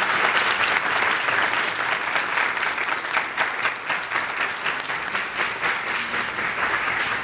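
Lecture-hall audience applauding: many hands clapping together, a dense, steady patter that thins a little near the end.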